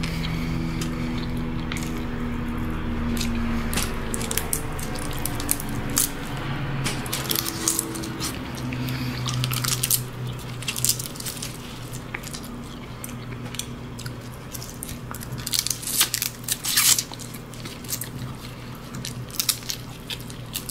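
Close-miked eating of crab meat: wet chewing, lip smacks and sharp clicks of mouth and shell, loudest about three-quarters of the way through. Soft background music with slowly changing low notes plays underneath.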